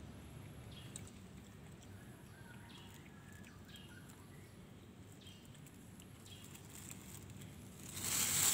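Quiet background with faint bird chirps and small ticks, then near the end a thin black plastic bag crinkles loudly as a hand reaches into it.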